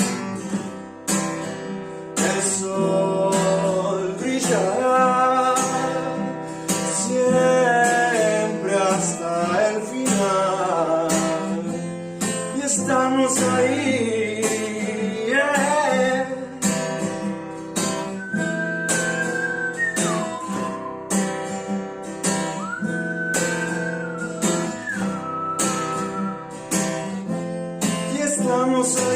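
Instrumental passage of a song: acoustic guitar strummed in a steady rhythm, with a sliding melody line played over it.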